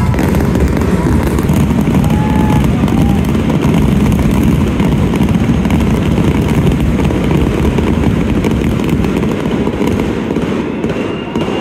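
Aerial fireworks going off in a dense, rapid barrage of shell bursts and crackling, easing off slightly near the end.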